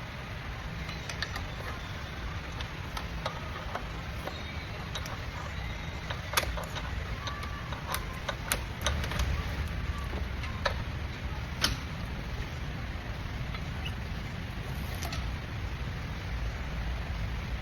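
Scattered light clicks and knocks, typical of hand tools and brake parts being handled, over a steady low hum.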